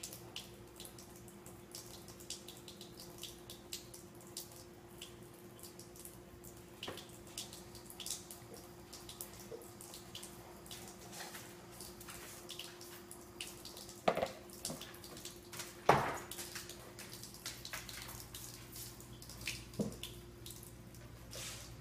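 Quiet room with a steady low hum, scattered small clicks and taps throughout, and a few louder knocks about two-thirds of the way through.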